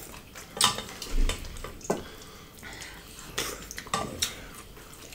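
Wooden spoon scraping and knocking against a stainless steel pot as pork in thick sauce is scooped out, in a handful of separate clinks and knocks.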